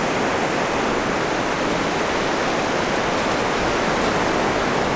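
Ocean surf breaking and washing up the beach as a steady, even hiss.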